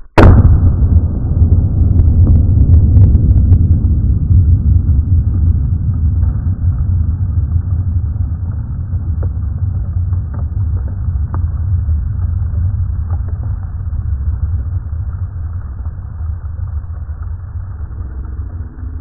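A Tannerite binary-explosive target detonating as it is shot: one sharp, loud blast right at the start. It is followed by a loud low rumble that goes on and slowly eases, with a few faint ticks in it.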